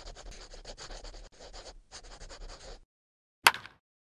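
Pen scratching on paper, a writing sound effect: quick scratchy strokes, about eight to ten a second, that stop a little under three seconds in. About half a second later comes one sharp, loud snap.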